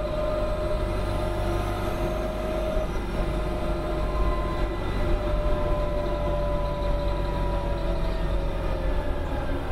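1995 New Flyer D40LF diesel transit bus under way: a steady low engine rumble with a whine that holds its pitch, then slowly drops in pitch near the end as the bus slows.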